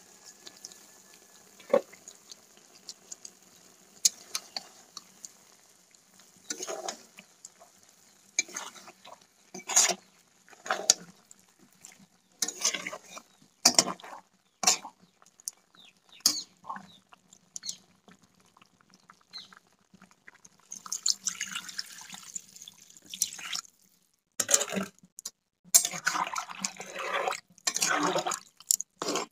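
A metal spatula scrapes and knocks against a kadai in irregular strokes as chunks of bottle gourd are stirred. About two-thirds of the way through, water is poured into the pan, and the stirring goes on with a wetter, sloshing sound.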